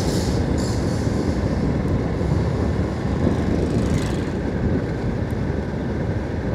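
Motorcycle engine running steadily under way, mixed with wind rumble on the camera microphone. A brief hiss comes about four seconds in.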